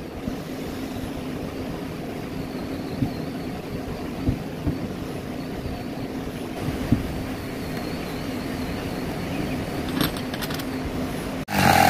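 A few light metallic clicks and taps from a T-handle wrench turning nuts on the threaded steel rods of a pine folding chair, over a steady low hum. Near the end the sound cuts off and something much louder begins.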